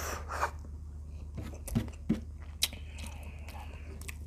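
Close-up chewing of a mouthful of food, with wet mouth smacks and a few sharp clicks about once every half second to second.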